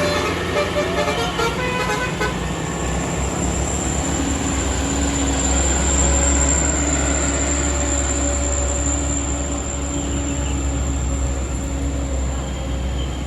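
A bus's multi-tone 'telolet basuri' horn plays a short melody over the first two seconds. Then the bus's diesel engine rumbles steadily as it passes, loudest about six seconds in and slowly fading.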